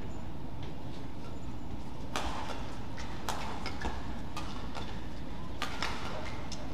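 Badminton rackets striking the shuttlecock during a fast doubles rally: a series of sharp, brief hits roughly once a second, over a steady low background rumble.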